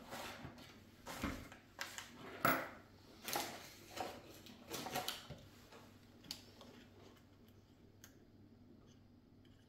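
Small hard objects and tools being handled and set down on a work table: irregular light clicks and knocks, the loudest about two and a half seconds in, thinning out after about six seconds.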